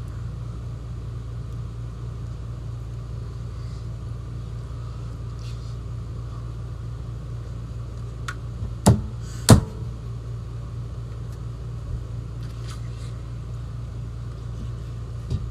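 A person coughing twice in quick succession, about nine seconds in, after taking a mouthful of scalding-hot meatloaf that burns the mouth and throat. A steady low hum runs underneath throughout.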